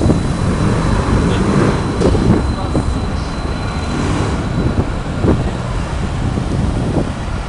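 Tram rolling past on street rails, with a thin, steady high wheel squeal during the first few seconds, over a continuous rumble of city traffic.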